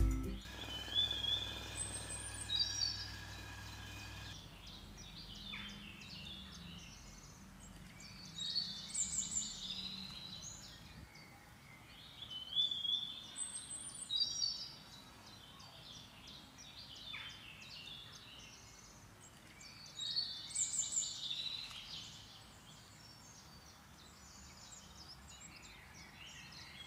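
Birds chirping and singing in short clusters of calls that recur every few seconds over a quiet background.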